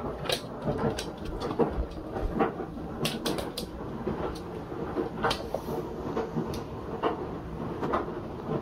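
Small dog tussling with a plush toy on a wooden floor: its claws click and scrabble on the floorboards and the toy scuffs and thuds, in irregular clicks and knocks.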